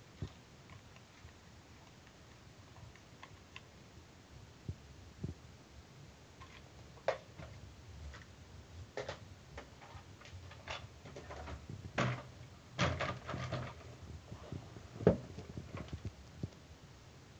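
Handling noise of plastic toy RC cars and a toy remote control on a wooden tabletop: scattered clicks and knocks, more frequent and louder in the second half, with one sharper knock near the end.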